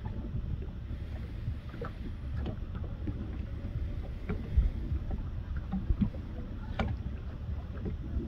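Wind buffeting the microphone over water lapping against a kayak's hull, with scattered light knocks and taps, two of them louder, about halfway and near the end.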